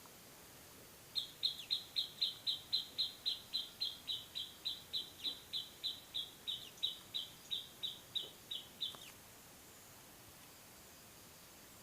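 Pet songbird calling a long run of about thirty identical sharp, high notes, some three and a half a second, for about eight seconds before stopping.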